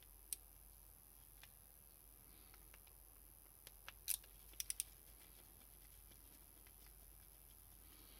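A few sharp, light clicks from small hand tools being handled: one just after the start, then a cluster about four seconds in, the loudest click followed by three quick ones in a row.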